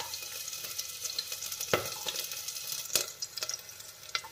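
Chopped garlic sizzling and crackling in hot oil in a pot, with a spoon stirring it and knocking against the pot a couple of times.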